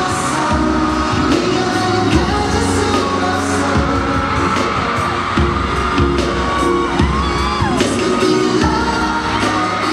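Loud live pop music over the concert sound system: a steady beat with singing, and the audience screaming over it.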